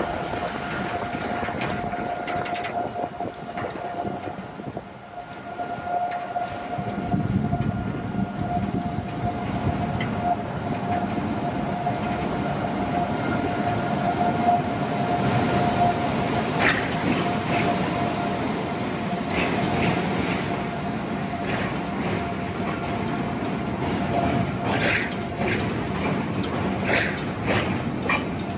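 Locomotive-hauled passenger express train approaching and running past on a steel truss rail bridge. A low rumble builds from about seven seconds in, with a steady tone held over it. Through the second half the wheels clack over the rail joints in repeated sharp knocks as the coaches go by.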